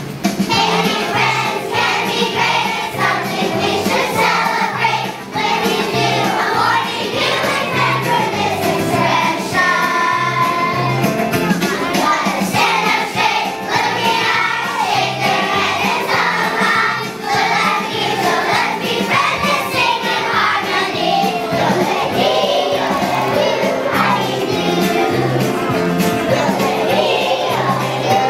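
A group of young children singing a song together over recorded or live musical accompaniment with a steady beat.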